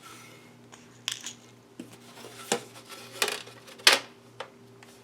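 Clicks and taps of a Dell Latitude E6510 laptop and its parts being handled and worked on. There are a handful of sharp, separate knocks, the loudest about four seconds in.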